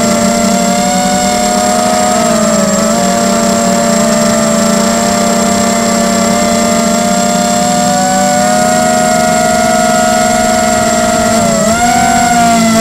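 Tarot 250 racing quadcopter's motors and propellers whining steadily, heard close up from the camera on board, with the pitch wavering slightly and dipping then coming back up near the end as the throttle changes. A thin, steady high whistle runs over it.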